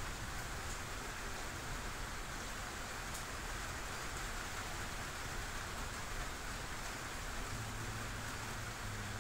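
Steady hissing noise, even and unbroken, with a low hum joining in about seven and a half seconds in.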